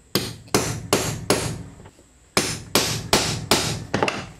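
Ball-peen hammer striking a hole punch through leather into a wooden board, punching rivet holes. Two runs of four sharp blows, about two and a half a second, with a pause of about a second between them and a couple of light taps near the end.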